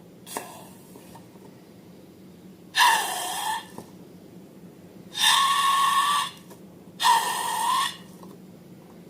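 Air squealing out of the stretched neck of a balloon in three loud squeals of about a second each, the pitch wavering, with a faint short one just before them.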